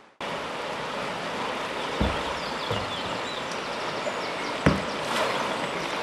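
Steady rush of a shallow river's current around a kayak, with a few short low thumps about two seconds in, shortly after, and near the five-second mark.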